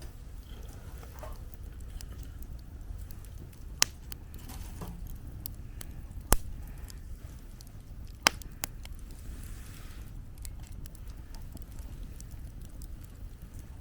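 Wood campfire crackling, with three sharp pops about four, six and eight seconds in, over a steady low rumble of wind.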